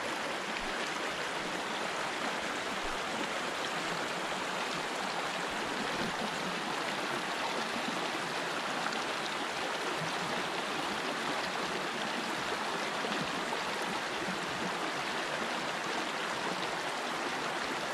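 Small, shallow rocky brook running steadily, water splashing over stones in a little riffle.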